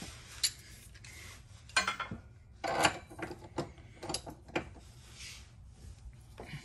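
Socket wrench working a 19 mm nut off a rear subframe stud: irregular metal clicks and scrapes as the deep socket seats on the nut and the wrench turns it.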